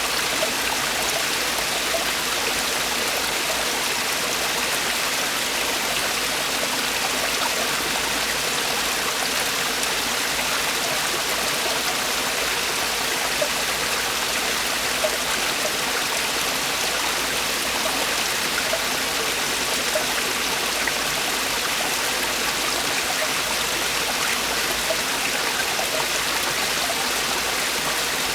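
Mountain stream water falling over rocks in a valley: a steady rushing and splashing with small splashes standing out now and then.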